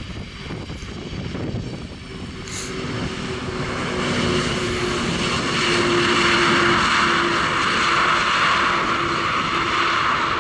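Jet roar from a Boeing 747-400's four General Electric CF6-80C2 turbofan engines as the airliner rolls out on the runway after landing. It grows louder over the first few seconds, then holds steady, with a low hum beneath.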